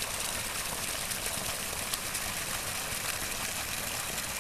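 Steady rush of river water running over rocks in a shallow riffle.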